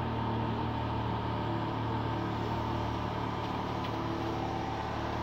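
Komatsu PC200 long-arm excavator's six-cylinder diesel engine running smoothly and steadily as the arm lifts the bucket, a constant hum with a thin higher tone over it.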